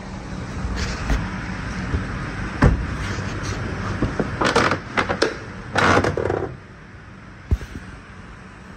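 A GMC Yukon's door being unlatched and opened by hand: sharp clicks of the exterior handle and latch, and rustling scrapes as the door swings. A steady low hum runs underneath and drops away about two-thirds of the way through.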